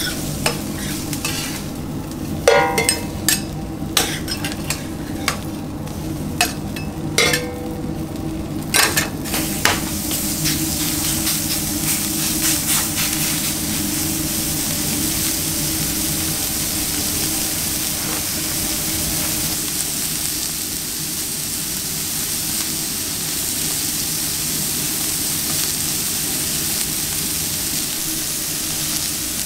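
A metal spatula scraping and clinking against a flat-top griddle and a steel pan as onions fry, with sharp clicks and a few short metallic rings. After about ten seconds this gives way to a steady high sizzle of raw beef burger patties cooking on a hot ridged grill.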